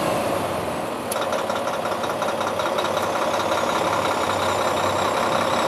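A 485-horsepower Mack diesel engine in a 2008 Mack CXU613 truck idling steadily, with a single sharp click about a second in.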